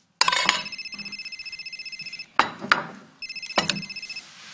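Telephone ringing with a rapid, trilling electronic ring: one ring of about two seconds, then a shorter second ring, with a few short clicks in between.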